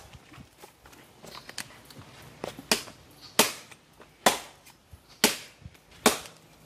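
Wood being chopped with a blade for the fire: a steady run of sharp chops about once a second, lighter at first and louder from about the middle on.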